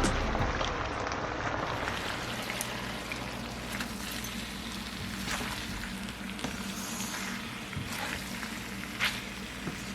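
Food sizzling in a hot pan, a steady frying hiss with scattered crackles and pops.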